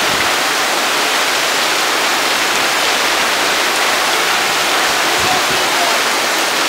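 Torrential tropical downpour, heavy rain pouring onto corrugated metal roofs in a steady, dense hiss.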